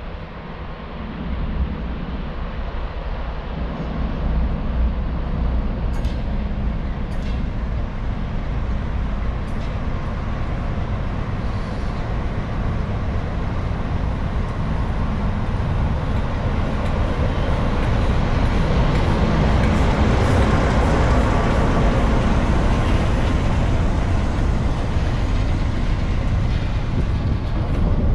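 Class 47 diesel locomotive running under its Sulzer twelve-cylinder engine as it approaches and passes, drawing a train of Pullman coaches. The sound grows steadily louder, is loudest about two-thirds of the way through, and then carries on as the coaches roll past.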